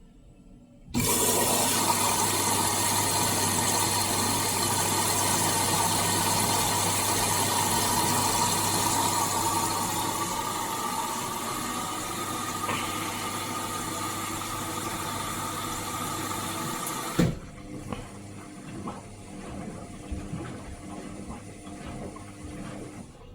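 Indesit IWSC 51051 washing machine pushing water through its plumbing: a steady rush of water over a low, steady pump or valve hum. It starts suddenly about a second in and stops about seventeen seconds in with a thump, leaving fainter machine noises.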